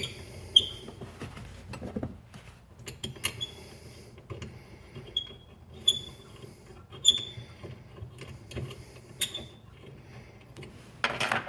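Small metal clicks and short ringing clinks, about half a dozen spread irregularly, as a set screw and jam nut are fitted to the metal shifter gate with an Allen wrench. A louder scraping rustle comes near the end.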